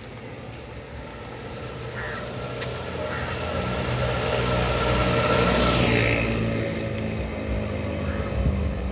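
A motor vehicle's engine passing by on the street, growing louder to a peak about five to six seconds in and then fading; a crow caws briefly a couple of times.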